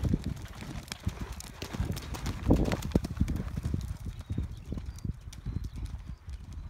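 A horse's hooves thudding in a sand arena at a canter, a run of repeated dull beats, loudest about two and a half seconds in.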